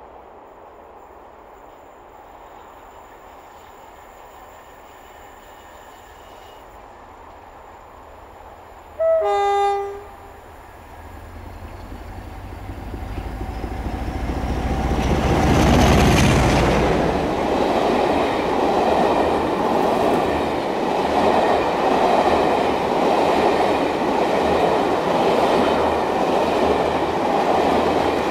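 A British Rail Class 47 diesel locomotive sounds its two-tone horn about nine seconds in, a short high note then a longer lower one. Its Sulzer diesel engine then comes closer and passes, loudest about sixteen seconds in. After it comes the steady rumble and clickety-clack of the passenger coaches running past at speed.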